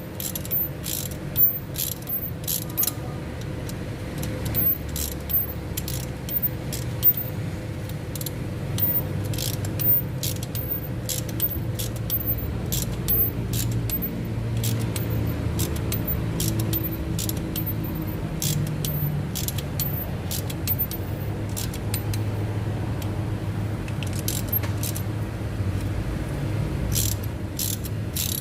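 Hand tools clicking and clinking against metal as new glow plugs are screwed into a diesel engine, over a steady low hum. The clicks come in irregular clusters, most of them in the first half and again near the end.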